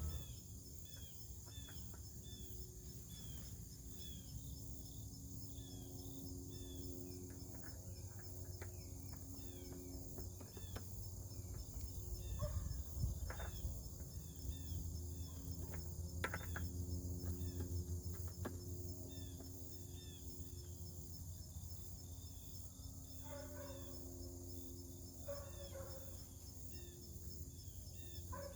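Insects buzzing steadily with birds chirping over and over, and a few short sharp knocks now and then, loudest about halfway through, from metal parts being fitted back onto the mower deck.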